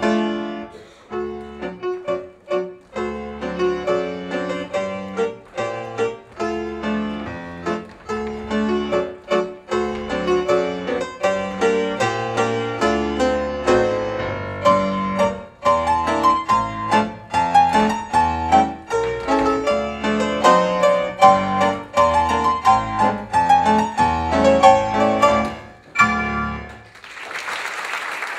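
Piano music, a steady run of struck notes over a bass line, that stops near the end. Audience applause breaks out right after it.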